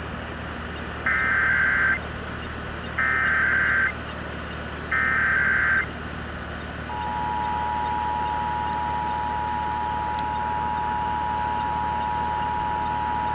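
Emergency Alert System SAME header: three identical data-tone bursts of about a second each, roughly two seconds apart. About seven seconds in, the EAS two-tone attention signal (853 and 960 Hz sounded together) starts and holds steady. Together they open a Required Monthly Test alert, heard through a broadcast receiver over a low steady hum.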